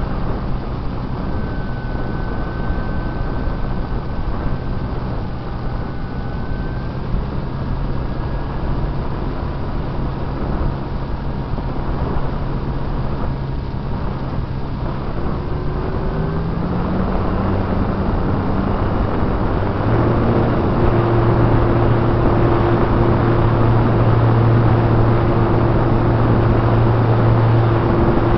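Radio-controlled model plane's motor and propeller heard from on board, a steady drone with wind rushing past. About two-thirds of the way through the pitch steps up and the drone grows louder as the throttle is opened.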